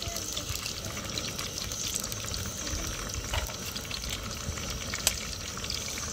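Eggs sizzling in a pan of hot oil, a steady hiss, with a few sharp taps as a metal spoon cracks an eggshell, the loudest about five seconds in.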